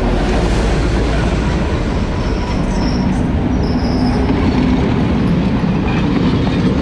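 A train passing close by at a level crossing: the steady, loud rumble of wagons running over the rails.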